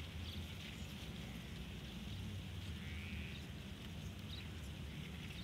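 Open-field outdoor ambience: a steady low rumble with faint, scattered bird chirps.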